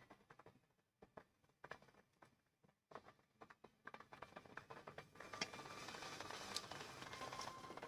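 Faint pops and crackles of a fish curry simmering in a pan on the gas stove, sparse at first and getting denser and louder from about halfway through.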